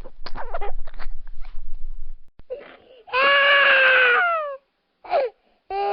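A child's voice in short bursts of chatter and giggling, then a small child crying: a long wail that drops in pitch as it ends, a short sob, and another wail beginning near the end.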